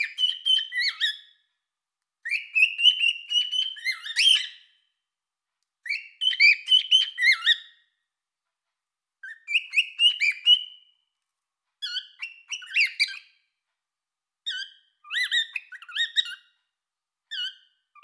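Cockatiel singing: a series of short phrases of quick, chirpy whistled notes, each phrase one to two seconds long, broken by pauses of about a second.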